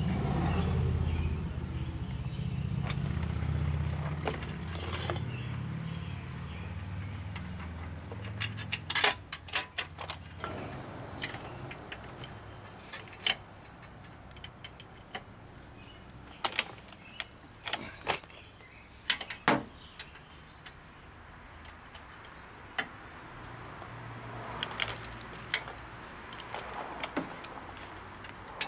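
Hand tools working on the wheel hub assembly's bolts: a socket and long-handled wrench clinking and knocking on metal in scattered sharp clicks, with a denser run of small clicks near the end. A low rumble under the first several seconds fades away.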